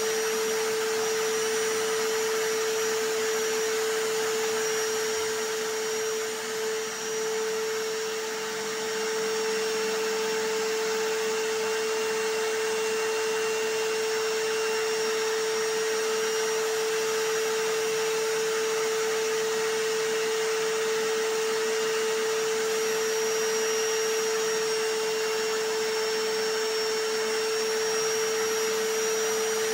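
Vacuum cleaner noise layered with a hammer drill's, running steadily as a continuous noise with a strong, steady whine. The level dips briefly about six seconds in.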